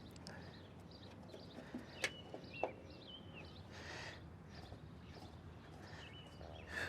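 Faint birds chirping, with two short sharp clicks a little over two seconds in and a brief soft rustle near the middle.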